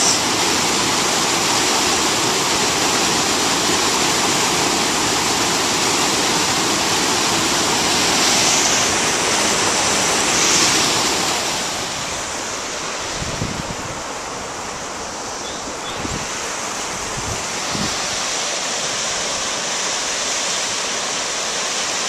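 Fast-flowing stream water rushing steadily, easing a little about halfway through, with a few brief low rumbles in the second half.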